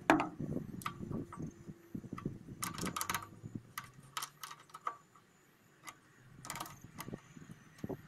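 Light metallic clicks and knocks of carburetor fittings being handled by hand on a small petrol engine that is not running. The clicks are scattered, bunched a few seconds in and again near the end, with a quiet spell between.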